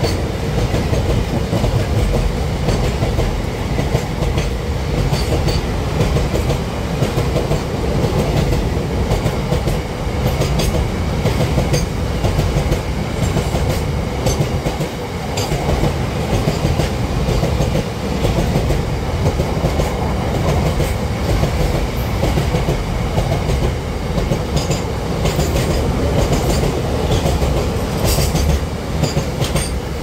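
Container freight train wagons rolling past: a loud, steady rumble of steel wheels on the rails with a repeated clickety-clack over the rail joints.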